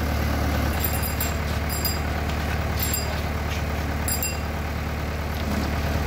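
JCB 3DX backhoe loader's diesel engine running steadily while it works, a low drone, with four brief high-pitched squeaks between about one and four seconds in.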